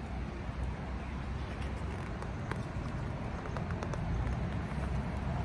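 Steady low outdoor rumble of distant street traffic, with a few faint clicks.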